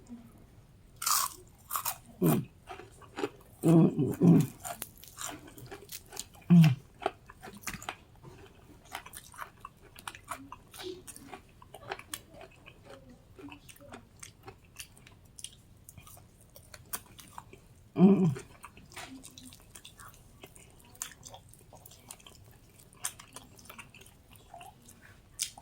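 Close-up biting and chewing of crispy fried chicken wing skin: sharp crunches in the first few seconds, then a steady run of smaller crunching and mouth sounds.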